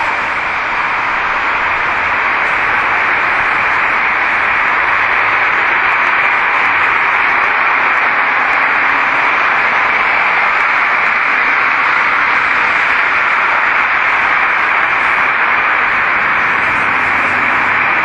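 Loud, steady rushing hiss with no distinct events, strongest in the upper middle of the range.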